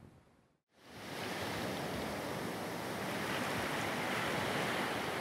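Steady rush of surf and wind on the shore, starting after a brief silence about a second in.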